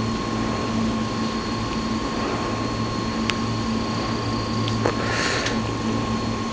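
Steady mechanical hum with a low drone and a few high tones. A single sharp click comes about three seconds in, and a short rustle about five seconds in.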